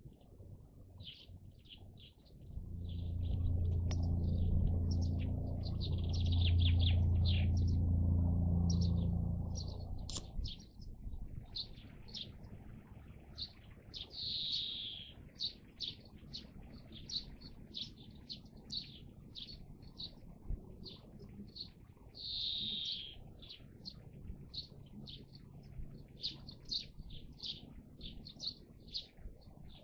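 Small songbirds chirping over and over in short high notes. From about two to ten seconds in, a loud, low, steady hum sits underneath and is the loudest sound.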